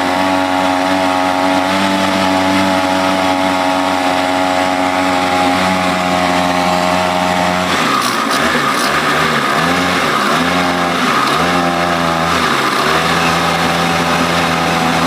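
Small 3.5-horsepower boat engine, freshly serviced, running steadily, then revved up and down several times in quick succession about halfway through before settling back to a steady run.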